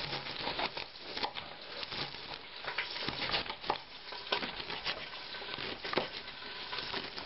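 Kitchen knife chopping rock samphire on a plastic cutting board, with irregular taps, over the steady sizzle of a pan frying in oil.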